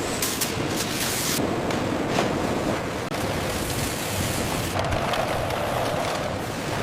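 Steady rushing noise of wind and sea surf, without pitch or rhythm.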